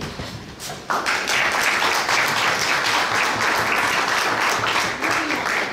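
Audience applauding, starting suddenly about a second in.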